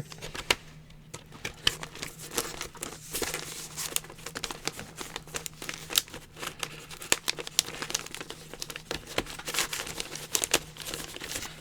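Paper sleeve and packaging of a vinyl LP crinkling and rustling as they are handled, with irregular crackles throughout as the record and its lyric insert are worked back into the jacket.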